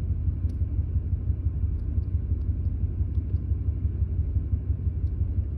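2001 Ford F-150 engine idling roughly at operating temperature, a low, uneven pulsing rumble. The roughness comes from random cylinder misfires, which the owner suspects come from the coil-on-plug ignition, wiring or an injector.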